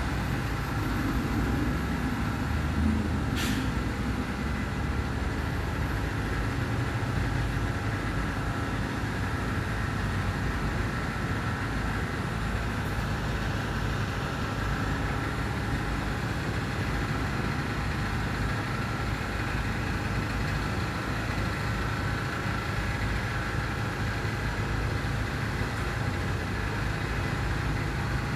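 Steady rattling noise of cement-smoothing machinery at a construction site, running continuously with a low rumble and a couple of faint steady tones. A single sharp click about three and a half seconds in.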